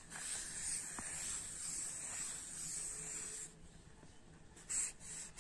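Pencil scratching across drawing paper in strokes: a faint, steady scratchy rasp for the first three seconds or so, then short separate strokes near the end.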